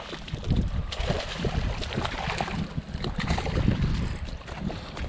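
Wind buffeting the microphone in uneven low gusts, with scattered rustling and small handling knocks.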